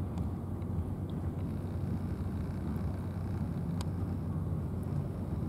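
Steady low outdoor background rumble, with a faint click about four seconds in.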